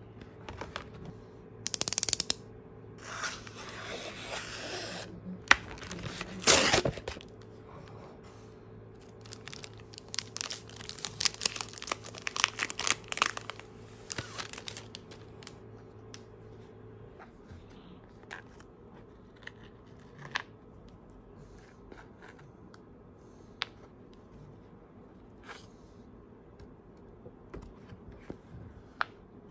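Packaging being opened by hand: a card mailer torn open with sharp ripping and rustling in the first seconds, then a clear plastic bag crinkling and crackling as a notebook is slid out of it. After that come only scattered soft taps and paper rustles as the notebook is handled and opened.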